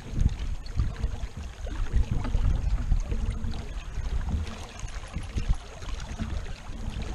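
Water rushing and gurgling along the stern of a sailboat under way, with an uneven, gusty wind rumble on the microphone.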